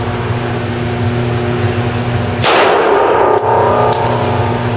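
A 9mm pistol shot with low-powered frangible ammunition about halfway through, and the steel target clanging as it is hit, ringing for about a second. A steady low hum runs underneath.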